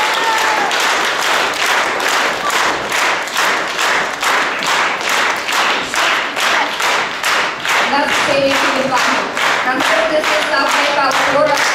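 Audience clapping together in a steady rhythm, about three to four claps a second. From about eight seconds in, a few voices start singing held notes over the clapping.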